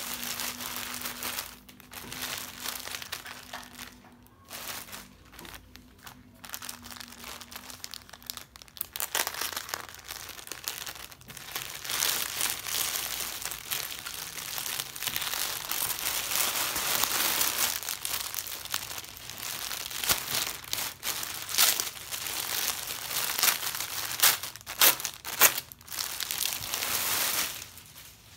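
Plastic mailer bag and clear plastic garment wrapping crinkling and rustling as they are handled and opened. The crinkling is stop-start at first, then turns continuous and louder about a third of the way in, with sharp crackles.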